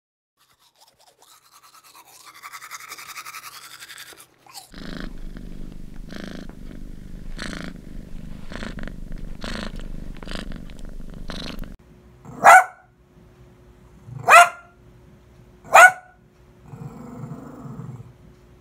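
A smartphone's ringtone sounds for the first few seconds and stops. Then a domestic cat purrs in a steady pulsing rhythm for about seven seconds, and then a small dog barks three times, loud and sharp, about a second and a half apart.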